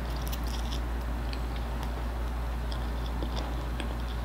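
A person eating instant noodles with chopsticks at close range: chewing, with small scattered mouth clicks, over a steady low hum.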